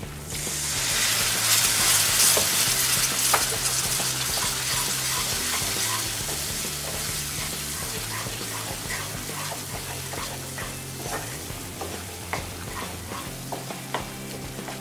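A splash of water poured onto hot oil and fried masala paste in a frying pan sets off a loud hissing sizzle that swells in the first seconds, then slowly dies down. A wooden spatula stirs and scrapes through the paste in the pan.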